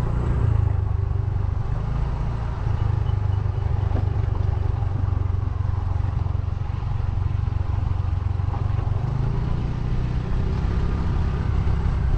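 Motorcycle on the move, its engine and the ride making a steady low rumble.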